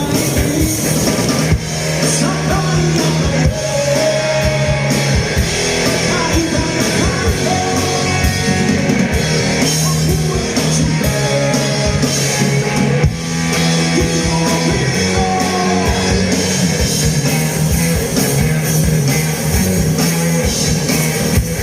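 Rock band playing live: electric guitar and drum kit, with singing.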